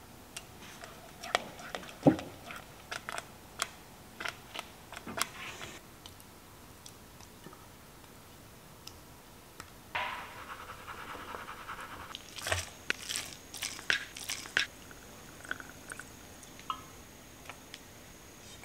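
Kitchen utensil sounds: a silicone spatula scraping and knocking against a stainless steel saucepan of thick acorn jelly, in scattered clicks and scrapes. Partway through, a short rush as the jelly is poured into a glass container, followed by more clicks and knocks.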